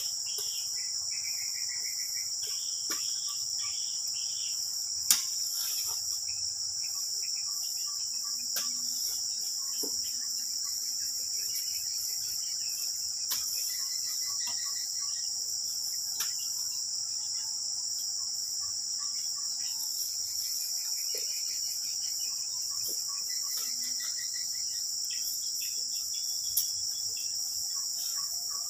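Steady high-pitched chorus of tropical insects, with a few scattered knocks over it, the sharpest about five seconds in.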